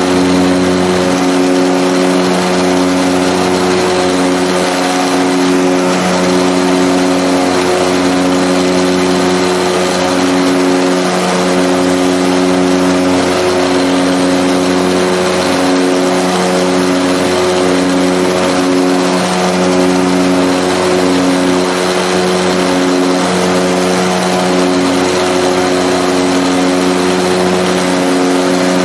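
Twin turboprop engines and propellers of a CAL FIRE OV-10A Bronco air attack plane in cruise, heard inside the cockpit as a loud, steady drone over airflow hiss. One of the hum tones wavers in and out every second or so.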